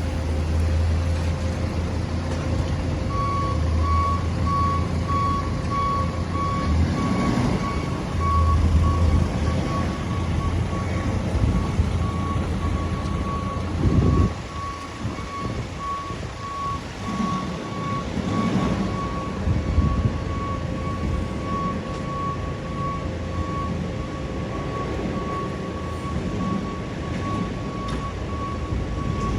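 A large truck's reversing alarm beeping over and over, with the truck's engine running beneath it. There is a brief loud burst about halfway through, after which the engine sound is lower.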